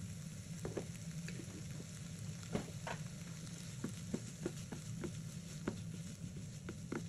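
Sliced onions and capsicum sizzling in a nonstick frying pan while being stirred with a wooden spatula, with short scrapes and taps of the spatula against the pan every second or so.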